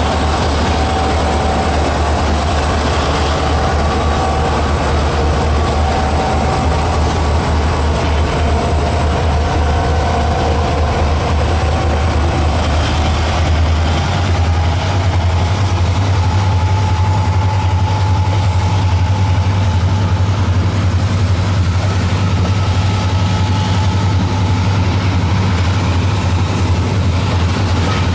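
Diesel-electric freight locomotives, EMD GT26CU-2 and GU26CU-MP units, running under load as they pull a train past. They make a loud, steady, heavy drone that rises slightly in pitch about halfway through. Near the end the freight wagons are rolling by.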